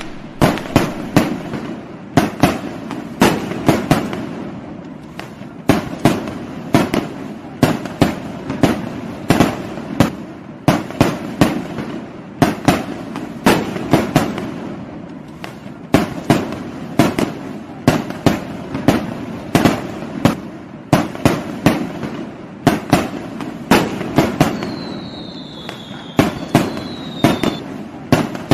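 Fireworks going off: an uneven barrage of sharp bangs, several a second, over constant crackling, with a brief falling whistle near the end.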